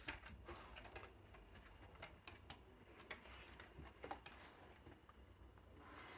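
Near silence broken by faint, irregular ticks and light taps, a few each second, over a quiet low hum.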